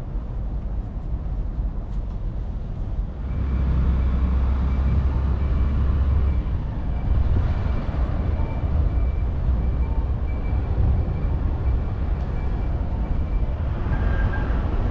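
Steady low rumble of passing vehicle traffic, swelling about three seconds in, with a faint high tone pulsing on and off over it.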